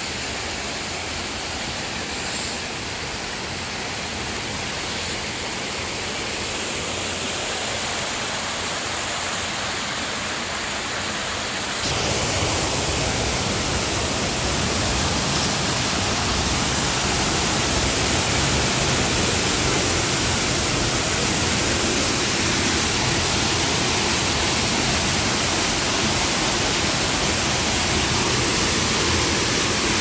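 Small waterfall cascades rushing over rock into pools, a steady, even rush of falling water. It gets suddenly louder and deeper about twelve seconds in, as the falling water is heard up close.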